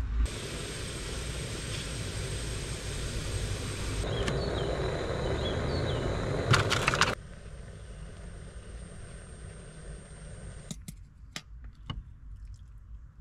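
Steady hiss of a canister gas camping stove burning under a steel pot, with cooking noise, dropping away abruptly about seven seconds in. A few light clinks of a utensil against the metal pot come near the end.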